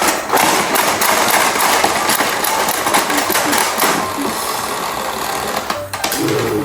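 Battery-powered toy train running, its small motor buzzing steadily amid the clicking and rattling of plastic parts.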